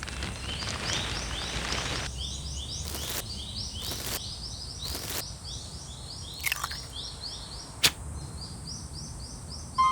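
Outdoor ambience of rapid, evenly repeated high bird chirps. Three short swishes come about a second apart, then a falling glide, and a single sharp crack near the end.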